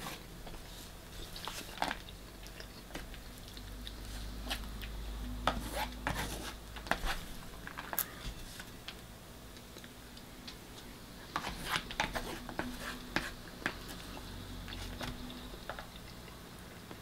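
Eating sounds: a metal spoon scraping and clicking against a plastic ready-meal tray in scattered clusters of sharp clicks, with close-up chewing of the food.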